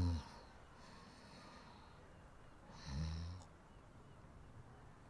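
A person snoring: a low rumbling snore fading out just at the start and another about three seconds in, with a soft breathy exhale between them.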